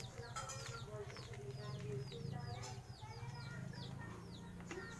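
Birds calling, with many quick falling chirps one after another, over a low steady hum.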